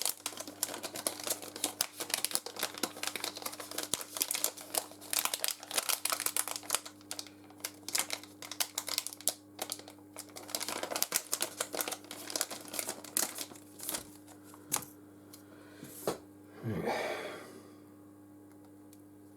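Plastic packaging crinkling and crackling as a replacement phone battery is unwrapped, with many small irregular clicks. About 17 s in there is a short swish that sweeps down in pitch. A steady low hum runs underneath.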